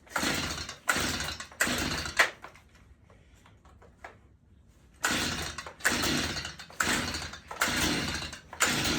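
Stihl MS 162 two-stroke chainsaw being pull-started: three quick rope pulls, a pause of about two and a half seconds, then five more pulls about a second apart. The engine does not keep running between pulls.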